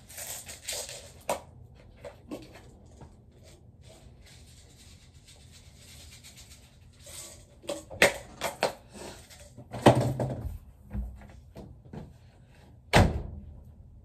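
Household handling noises at a washer and dryer: rustling and a string of clicks and knocks, with a loud thump about ten seconds in and a cupboard door knocking shut near the end.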